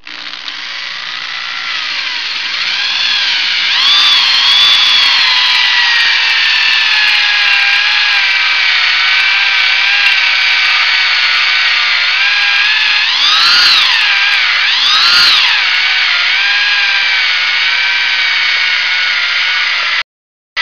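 Corded electric drill driving a hole saw through a pressure-treated pine board. The motor whines steadily while the saw cuts, building over the first few seconds, and its pitch swings up and down about four seconds in and twice more after the middle as the cutting load changes. The sound cuts out briefly near the end.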